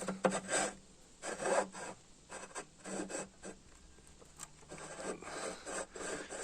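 Irregular scraping and rubbing strokes from metal parts being handled, consistent with a new drawbar pin being moved in its freshly pressed bushing.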